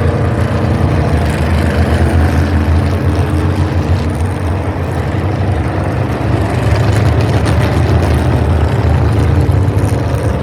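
A field of NASCAR Cup V8 engines running together at low revs after the start-engines command, a steady low rumble with no single car passing by.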